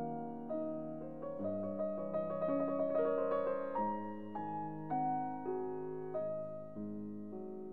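Background piano music: a slow, gentle melody over chords, each note struck and fading, with a quicker run of notes in the middle.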